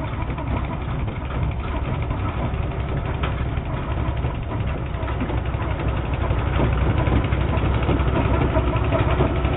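A small Honda petrol engine on a trailed fertilizer spreader runs steadily, getting a little louder from about six seconds in.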